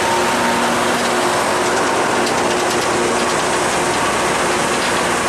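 Loram rail grinder train running past: a loud, steady mechanical din with a steady engine hum under it and light rapid clicking in the middle.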